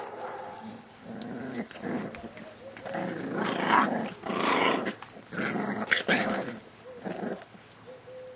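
Five-week-old Staffordshire Bull Terrier puppies growling in a string of rough bursts, loudest in the middle.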